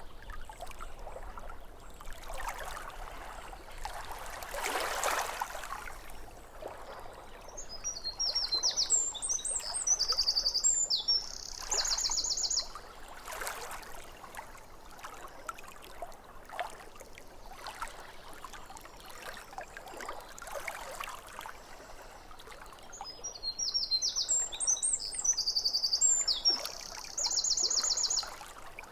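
Small waves lapping at a lake shore in soft, irregular washes. A songbird sings the same phrase twice, about a third of the way in and again near the end, each time ending in a fast trill.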